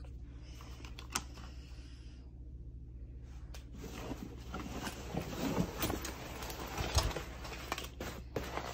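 Nylon backpack being handled: fabric rustling and strap buckles clicking, busier from about four seconds in, with a sharp click about seven seconds in, over a steady low hum.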